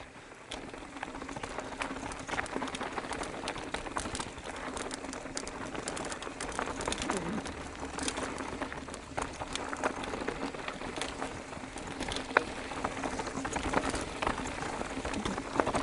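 Mountain bike descending loose rocky shale: the tyres crunch over the loose rock, with frequent clicks and rattles of the bike over the chunks.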